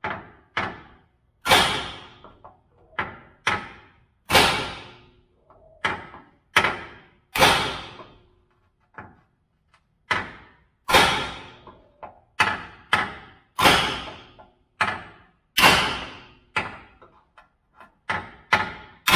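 Hammer blows on a steel punch held against the steel frame rail of an OBS Chevy pickup, about two dozen sharp metallic strikes at uneven spacing, roughly one to two a second, some much lighter than others, each ringing out briefly. The punch is driving out a part that is still stuck in hard.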